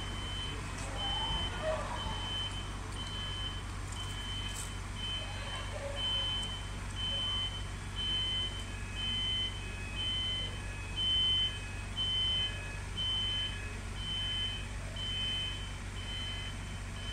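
An electronic warning beeper sounds a high, even beep about once a second, with a fainter lower tone, over a steady low hum.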